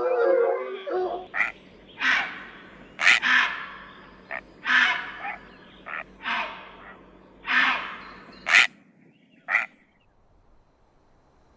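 A series of short, harsh animal calls, about a dozen of them at irregular intervals, dying away near the end.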